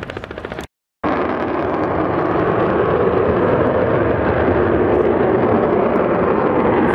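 Display aircraft's engine noise in flight, a loud steady roar. It follows a brief rapid chopping that cuts off abruptly under a second in, with a moment of silence between the two.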